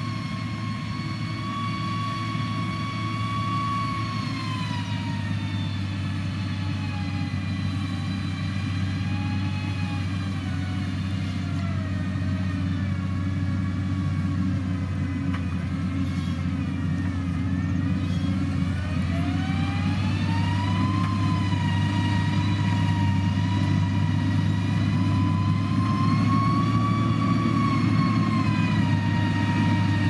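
Motor grader working, its diesel engine running with a steady low drone and a high whine that slowly drops in pitch toward the middle and climbs back up, growing a little louder near the end as the machine comes closer.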